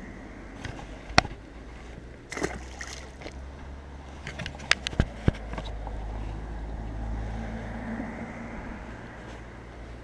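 A zander slipping back into the canal with a short splash about two seconds in. Sharp knocks and clicks of hands handling the fish and the rod close to the microphone come before it and a few seconds after. A low rumble runs underneath and grows in the second half.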